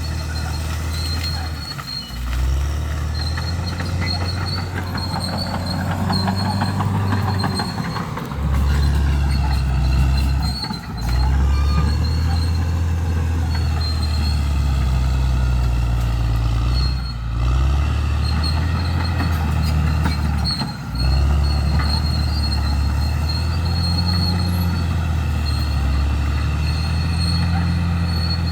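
Crawler bulldozer's diesel engine running loud under load as it pushes through brush. The engine note dips briefly about five times. Metallic squealing that glides up and down and a steady high-pitched whine sit above it.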